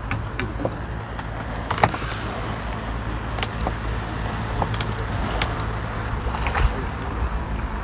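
A steady low hum with scattered light clicks and ticks.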